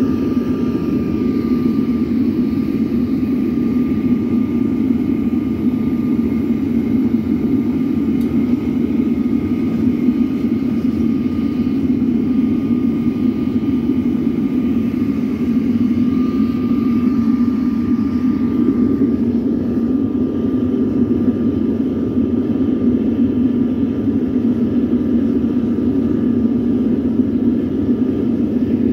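Homemade furnace firing hot: a steady rushing roar of forced air and flame through the chamber, with a faint steady high whine on top.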